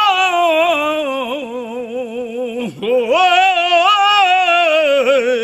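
A man singing long, drawn-out held notes with a strong, wide vibrato, a single voice on its own. Each phrase sinks slowly in pitch, with a brief break for breath a little under three seconds in before the next held note.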